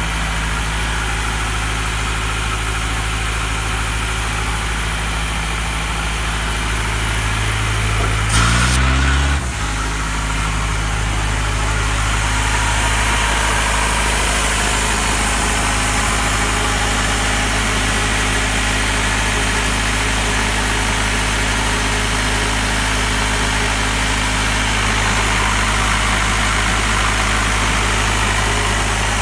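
Diesel engine of a Doosan P185WJD portable air compressor running steadily, with a brief loud jolt about eight and a half seconds in.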